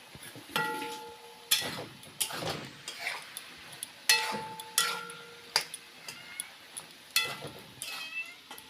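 Metal utensil knocking and scraping against a metal cooking pot, a series of sharp clanks, two of which leave the pot ringing briefly.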